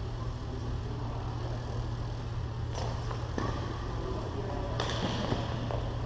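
Badminton rackets striking the shuttlecock in a doubles rally: a few sharp hits about three seconds in and again near five seconds, over a steady low hum.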